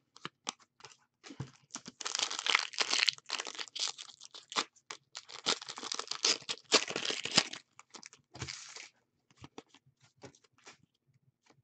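Hockey trading cards being handled and shuffled by hand: rustling and crinkling of card stock in two stretches, with scattered small clicks and taps that thin out near the end.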